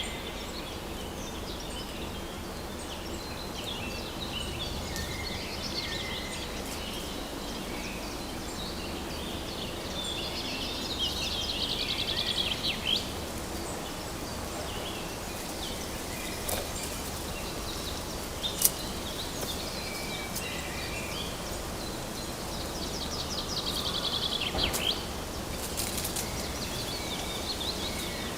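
Woodland birdsong: several birds calling and singing over a steady background hiss, with rapid trilled phrases about a third of the way in and again near the end.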